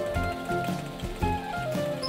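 Background music: an instrumental melody over a steady beat.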